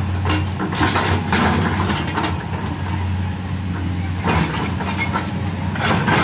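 LiuGong hydraulic excavator's diesel engine running steadily under load, with irregular scrapes and clanks from the bucket working soil and tree roots.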